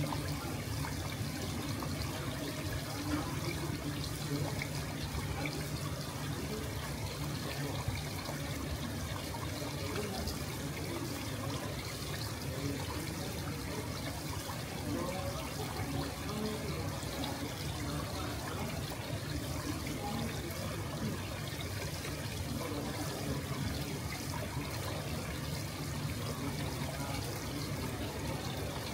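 Water running and splashing steadily, with faint voices in the background.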